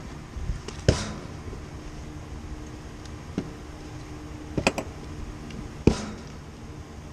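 Several sharp knocks and clicks of handling work, the loudest about a second in and just before six seconds, over a steady low hum.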